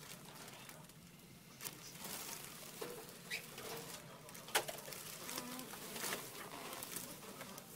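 Fetal heartbeat coming through an ultrasound Doppler monitor as a fast, pulsing whoosh. Several sharp clicks cut through it, the loudest about halfway through.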